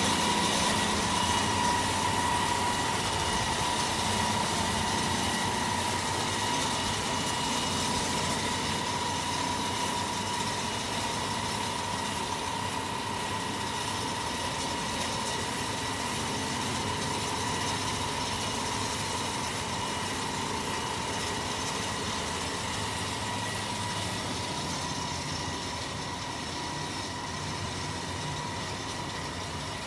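A homemade CNC diamond wire saw running while it cuts through a stone boulder with water cooling the wire. It makes a steady high whine over a broad rushing noise.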